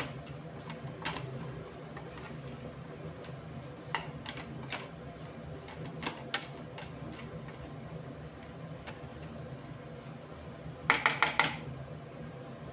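Spatula stirring green chillies and spice masala in a steel kadai, giving scattered scrapes and clicks against the pan over a steady low hum from the induction cooktop. Near the end comes a quick run of four or five sharp knocks against the pan.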